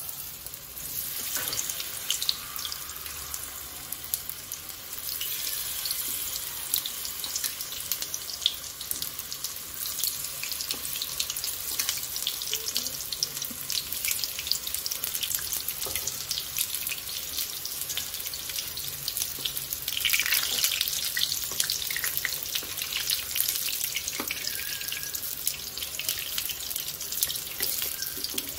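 Batter pakoras deep-frying in hot oil in a small pan: a steady sizzling hiss full of fine crackles, louder for a moment about two-thirds of the way through.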